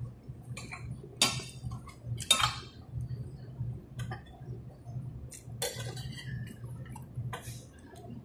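Metal fork clinking and scraping against a plate about five times as pancakes are cut and picked up, over a low steady background hum.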